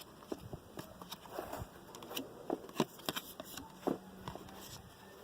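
Trading cards being handled and flipped through by hand: scattered soft clicks and rustles at an uneven pace.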